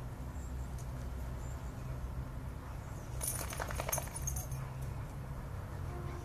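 Light metallic jingling for about a second and a half, a little over three seconds in, over a steady low rumble.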